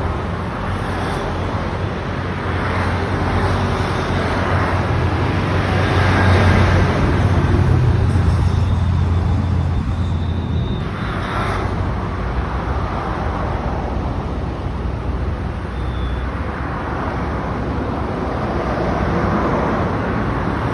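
Heavy truck's engine running with road traffic noise, a steady low hum that swells a little about six to nine seconds in.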